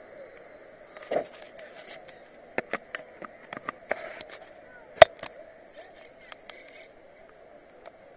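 Scattered sharp clicks and knocks over a steady hiss, the loudest a single knock about five seconds in: a bicycle and its mounted action camera rattling as the bike comes to a stop.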